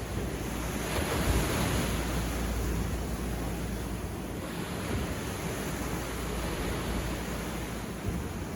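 Sea surf washing onto a beach, one wave surging up about a second in and easing off about halfway through.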